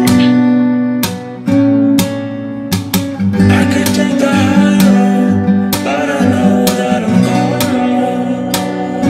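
Guitar music: chords strummed in a steady rhythm over low bass notes.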